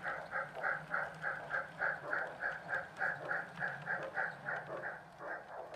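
Sound decoder of an O scale Southern Pacific 4-8-0 Mastodon steam locomotive model playing steady exhaust chuffs through its speaker, about three a second, at a slow running speed.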